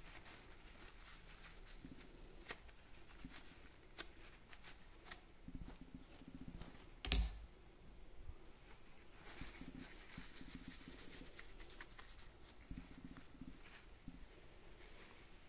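Small parts of a linear bearing carriage being handled and scraped clean by hand: faint scattered clicks and scraping, with one louder knock about seven seconds in.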